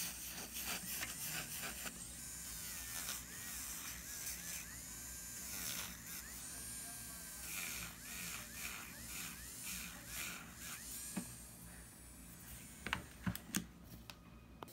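Electric nail drill with a callus-removal bit running and grinding hardened skin around a fingernail, a steady motor hum with a whine that wavers in pitch. A few sharp clicks near the end.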